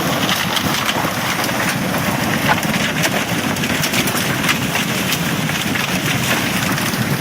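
Loud, steady rush of water with many small splashes and crackles running through it.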